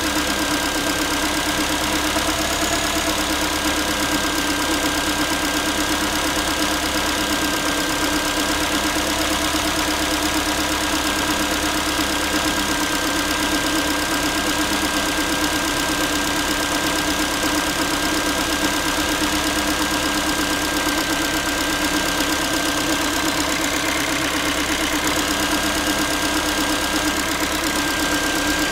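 Ford Focus 3's 1.6-litre 125 hp petrol four-cylinder idling steadily, with a faint high whine and a fine, fast, even ticking. This is the mechanical knock the owner hears after a cold start, a tinny, saucepan-like sound whose cause he does not know.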